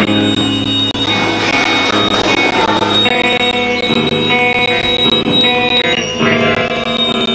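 Loud amplified live band music: layered, held notes from electric instruments that overlap and shift every second or so.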